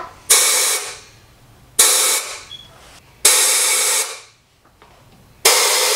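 Compressed-air blow gun fired in four short blasts into the oil and water passages of a BMW M51 diesel cylinder head. Each blast is a loud hiss that starts sharply and tails off, and the last comes near the end. The air is clearing out metal flakes left in the head's passages.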